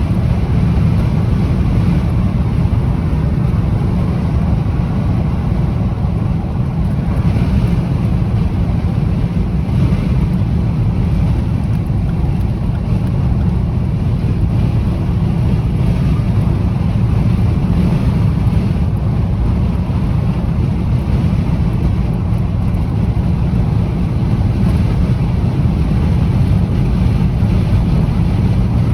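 Strong gusting wind buffeting the microphone: a loud, steady low rumble that never lets up.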